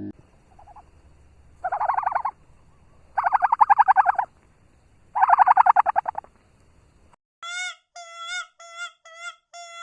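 An animal calls three times, each call a rapid, rattling run of pulses about a second long. Near the end a different series of short, clear, high-pitched calls begins, each one bending up and down in pitch.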